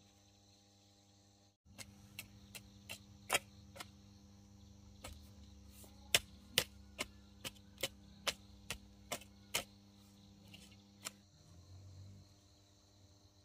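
A run of sharp, evenly spaced knocks, about two to three a second, in two bursts with a short pause between and a last single knock near the end, over a faint steady hum.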